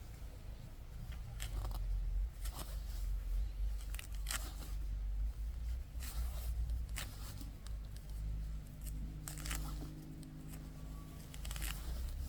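Irregular sharp tearing sounds, about one a second, over a low rumble.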